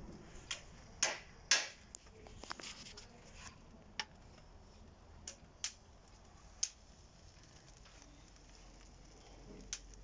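Charcoal grill: scattered, irregular clicks and pops over a low background hiss.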